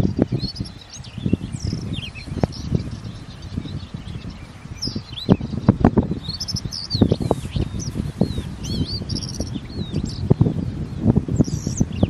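Rufous-tailed scrub robin singing: short phrases of quick, high, rising and falling notes every few seconds, over frequent low thuds.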